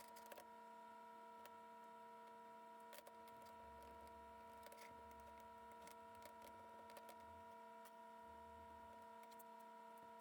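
Near silence: a faint steady electrical hum with a few faint scattered ticks.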